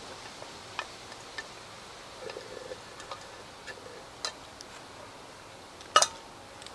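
Scattered light clicks and taps of eating utensils against cookware, with one sharper, louder click about six seconds in, over a steady faint background hiss.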